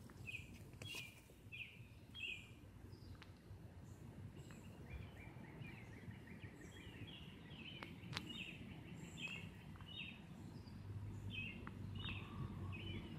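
Faint outdoor ambience with small birds chirping off and on, short notes repeated in quick runs. There are a few sharp clicks, the loudest about eight seconds in, and a low hum joins near the end.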